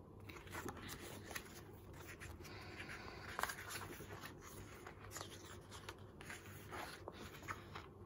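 Photobook pages being turned and handled: faint paper rustling with a few soft flicks and scrapes.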